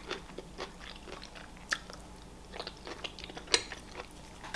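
A person chewing food close to the microphone, with scattered small crunches and wet mouth clicks; one sharper crunch comes about three and a half seconds in.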